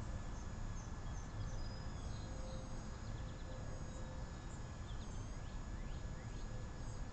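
Small birds chirping faintly in short scattered notes over a steady low outdoor rumble, with a few thin steady high tones running underneath.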